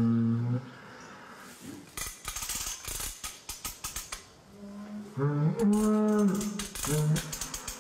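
Cow in labour mooing: a short moo at the start and a longer drawn-out one about five seconds in. In between and near the end comes a run of sharp metallic clicks from the calving jack's ratchet as its handle is worked to pull the calf.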